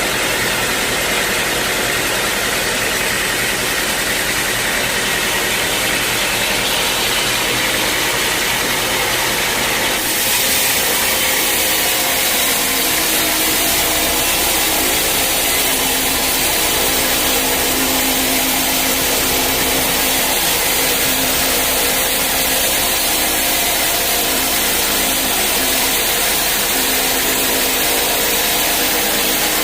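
Sawmill machinery running steadily, an engine-driven saw working through teak wood, with an abrupt change in the sound about ten seconds in.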